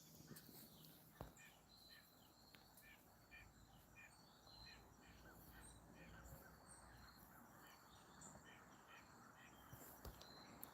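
Near silence: quiet outdoor ambience with faint, evenly repeated high chirps from a small animal, and a single sharp click about a second in.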